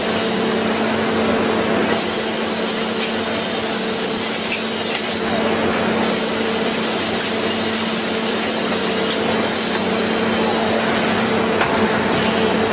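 CNC machine tool running steadily, with a constant hum and a high whine that comes and goes every few seconds.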